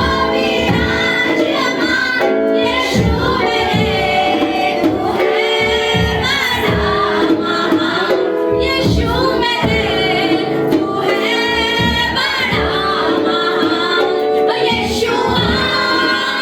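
Women's voices singing a Christian worship song over instrumental accompaniment with a steady drum beat.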